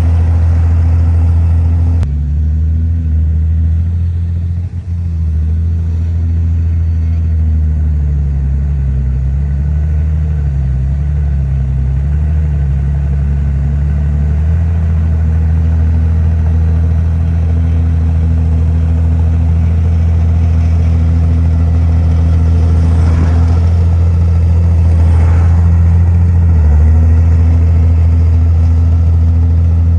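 Heavy diesel engine of earthmoving machinery running steadily at close range. Its pitch sags and wavers for several seconds in the middle and again briefly near the end, as the engine takes load.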